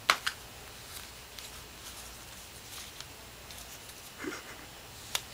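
Hands tapping and knocking on a board book and a wooden tabletop: a sharp tap right at the start, a second close behind it, then a few lighter taps and one more sharp tap near the end.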